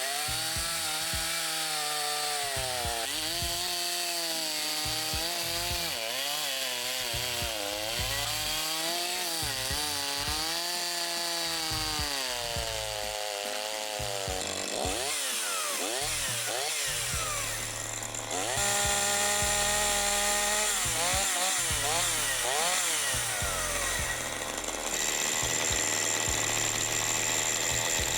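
Makita DCS5121 two-stroke chainsaw engine, its pitch rising and falling repeatedly as the throttle is worked. About two-thirds of the way through it gets louder and holds a steadier, higher speed.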